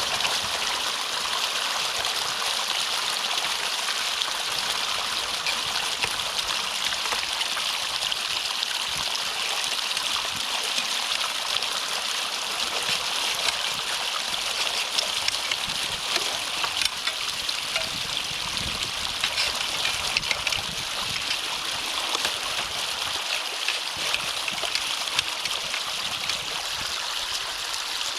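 Water running steadily through a drainage-ditch culvert being cleared of a beaver dam, a constant rushing stream with light trickling and gurgling.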